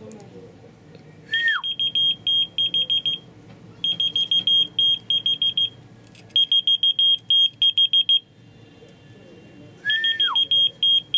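A short whistle falling in pitch sets off a whistle-activated key-finder keychain. The fob answers with rapid, high-pitched electronic beeping in three bursts of about two seconds each. Near the end a second whistle sets it beeping again.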